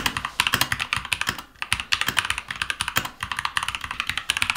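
Fast typing on a computer keyboard: a quick run of key clicks, with a short break about one and a half seconds in.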